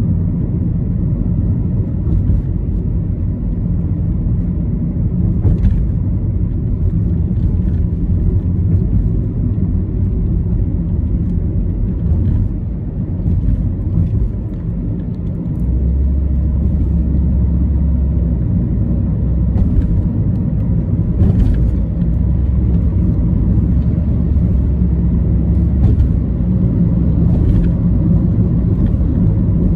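Car interior road noise while driving: a steady low rumble of engine and tyres at cruising speed, with a few faint clicks.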